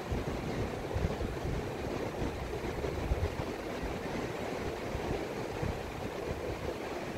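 Steady rush of waves breaking on a beach, with wind buffeting the microphone in uneven low gusts.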